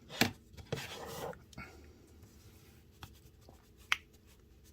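Handling of a disassembled folding knife's small parts: a couple of sharp clicks and a short scrape early on, then a few light ticks.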